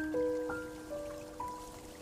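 Soft background music: a slow melody of single struck notes, about four of them, each ringing on and fading.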